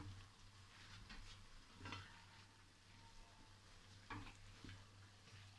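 Faint stirring of chicken and shredded vegetables in a nonstick wok with a silicone spatula: a few soft scrapes and taps, a second or two apart.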